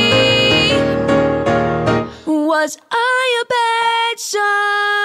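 Piano accompaniment playing full chords, which drops out about two seconds in. A single voice then sings on alone, with vibrato, settling into a long held note near the end.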